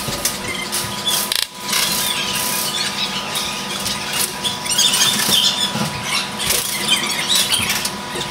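Indoor airsoft game noise picked up by a player-worn camera: dense crackling and clattering with many short clicks over a steady hum.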